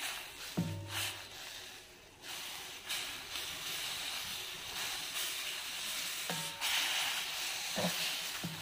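Chicken hot dogs boiling in a small amount of water in a pan over medium heat, a steady hiss of bubbling and steam as the water cooks down. The hiss drops and returns a few times.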